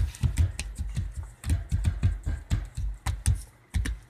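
Quick, irregular thumps and clicks, several a second, from a child's feet stamping and hopping on a wooden floor as he dances.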